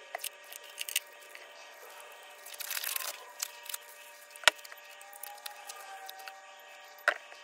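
Faint handling noises: a few sharp clicks and a brief rustle near the middle, over a steady high hum.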